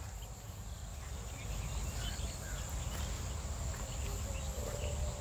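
A few faint, light metal taps as a small bearing is tapped into a breaker hammer's housing, over a steady high-pitched whine and a low hum.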